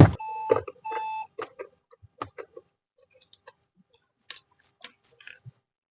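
Screws being taken out of a car's touch climate-control panel, with screwdriver and plastic-trim handling noise. A sharp click comes first, then two short whining tones within the first second or so, then scattered light clicks and ticks.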